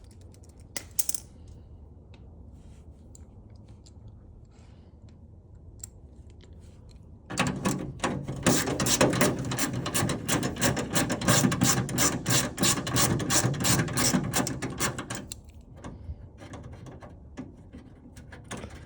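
Hand socket ratchet clicking rapidly for about eight seconds, starting about seven seconds in, as a fastener on the truck's door handle is worked loose. A few faint clicks come before it.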